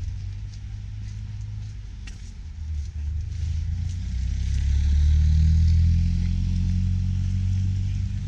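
A car's engine running close by, growing louder about halfway through and then easing off slightly.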